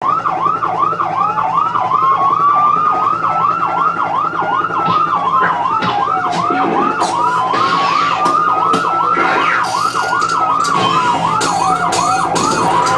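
Two emergency-vehicle sirens sounding together: a fast yelp sweeping up and down a few times a second, under a slower wail that rises and falls about every five or six seconds. A run of sharp clicks comes in during the second half.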